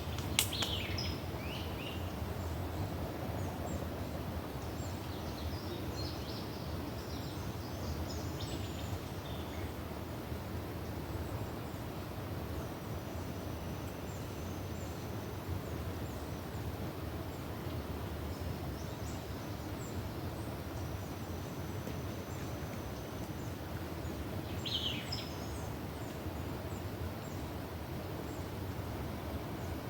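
Steady low outdoor rushing noise with a few short bird chirps: one about a second in, some around nine seconds and one near twenty-five seconds.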